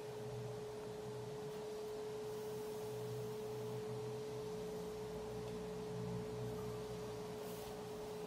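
A steady hum held at one pitch, with a fainter low drone wavering beneath it.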